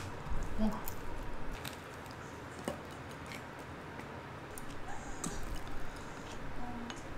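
Chopsticks lightly clicking against a plate and a sauce bowl, with soft squishing as deep-fried snacks are dipped in sauce; scattered small ticks rather than any steady sound.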